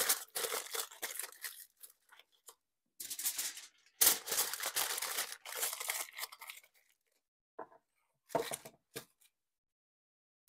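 Aluminium foil crinkling as it is folded and wrapped by hand around sweet potatoes, in several bursts, the loudest about four seconds in, with a couple of short rustles near the end.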